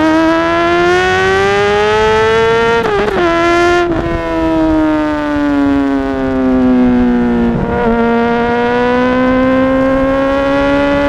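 Honda CBR600RR inline-four sport bike engine under way. The pitch climbs under acceleration, drops sharply with gear changes about three and four seconds in, then sinks slowly as the bike slows. There is another brief break near eight seconds, after which the pitch rises gently again.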